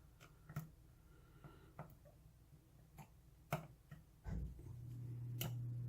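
Faint, scattered metal clicks and taps of a lock pick working the pins of a pin-tumbler lock held under tension. A low steady hum comes in about four seconds in.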